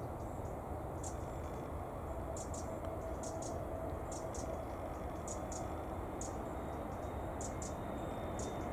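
Airbus A321neo jet airliner on final approach: a steady low jet rumble with a faint whine in the middle. Short high chirps come and go throughout.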